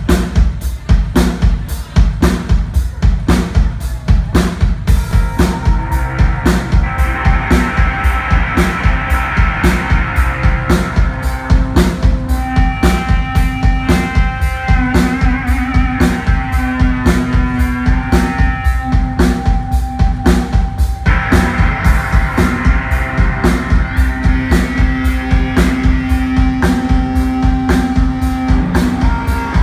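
Rock band playing live without vocals: a steady drum-kit beat with guitars over it, some notes held long.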